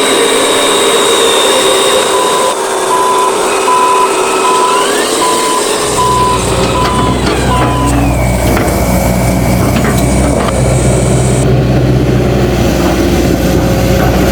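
A reversing beeper beeps about twice a second for roughly six seconds over a running truck engine. A deeper engine rumble comes in about six seconds in and carries on.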